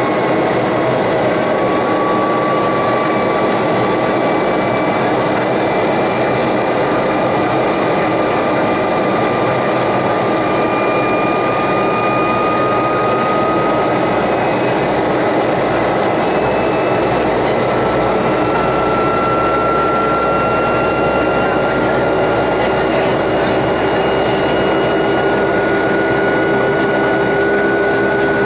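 Boeing 757 jet engine heard from inside the cabin in the climb after takeoff: a steady loud rush with a thin whine that rises slowly in pitch.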